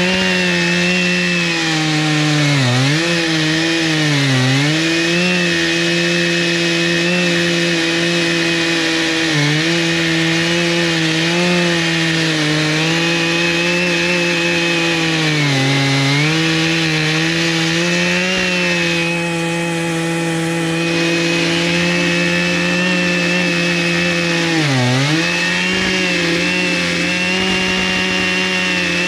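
Chainsaw mounted in an Alaskan mill running at full throttle, ripping lengthwise through a log. Its steady note sags briefly about five times as the cut loads the engine.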